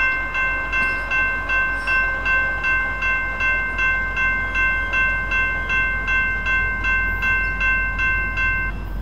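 Railroad crossing-signal bell ringing rapidly, about two and a half strokes a second, over a steady low rumble. The bell stops abruptly near the end.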